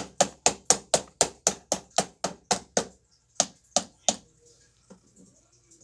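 Rapid, even clacking of hard Lego plastic, about four sharp clicks a second. It breaks off, three more spaced clicks follow, and it stops about four seconds in.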